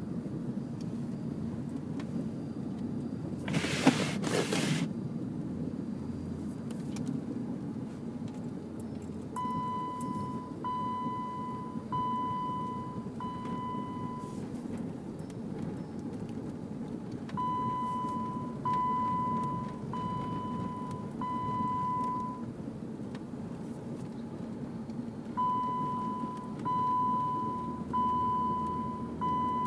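Inside a vehicle's cab, the engine runs with a steady low hum while a dashboard warning chime beeps in sets of four, three times over. There is a brief loud noise about four seconds in.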